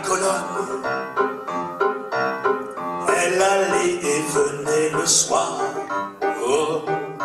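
A male singer performing a French chanson, accompanied by piano.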